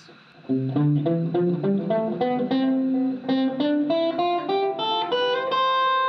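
Clean electric guitar, a Fender Stratocaster, playing a C major scale one note at a time, climbing two octaves from low C. It starts about half a second in and ends on a held high C.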